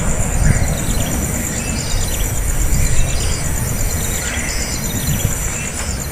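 An insect trills steadily at a high pitch in rapid even pulses, while short falling bird chirps come about once a second over a low rumble.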